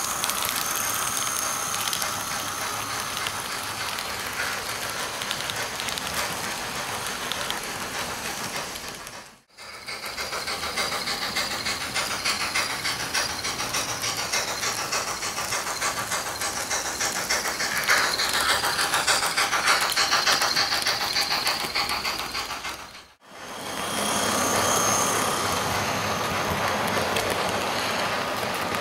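H0-scale model trains running on a layout: a steady steam-locomotive hiss from the sound-equipped models, with fast clatter of small wheels over the track. The sound drops out briefly twice, about a third of the way in and again near the end.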